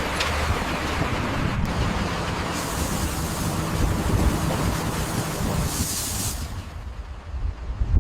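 Heavy construction machinery running with a low rumble, and two short hisses, one about three seconds in and one about six seconds in.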